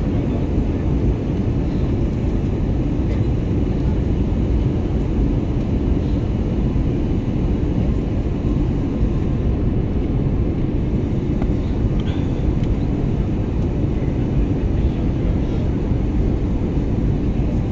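Steady low rumble inside an airliner cabin in flight: engine and airflow noise heard through the fuselage.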